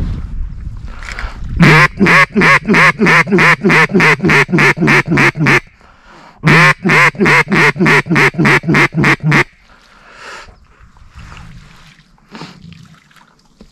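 Mallard duck call blown in two long runs of loud hen quacks, about three to four quacks a second, the second run starting about a second after the first ends.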